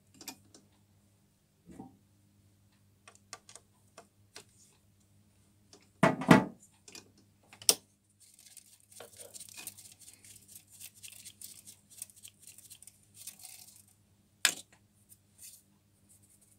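Clicks and knocks of handling around the stopped mini lathe, with a loud knock about six seconds in. Then several seconds of scratchy rustling as stainless steel swarf is brushed off the chuck and toolpost, ending with a sharp knock.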